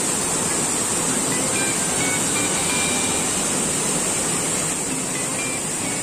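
Rushing water of a mountain stream and waterfall, a steady even noise, with a steady high-pitched whine running above it.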